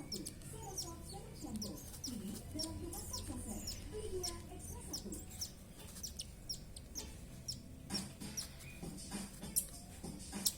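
Baby parrot chicks giving repeated short, high begging chirps and low wavering cheeps while being hand-fed formula.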